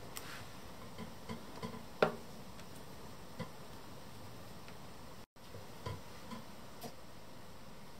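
Small plastic miniature toys being handled and set down on a tabletop: a scattering of light clicks and taps, the clearest about two seconds in.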